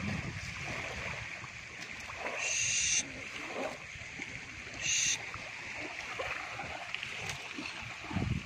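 Small waves washing steadily onto the beach. Two short high-pitched sounds cut through, one about two and a half seconds in and a briefer one about five seconds in; their source is unclear.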